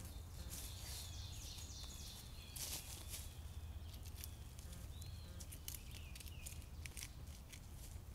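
Dry leaf litter and twigs crackling and rustling as a person steps about and pokes a stick around the base of a boulder, with the loudest crackle about a third of the way in. A songbird sings high notes, including a falling run of notes in the first couple of seconds. A steady low hum runs underneath.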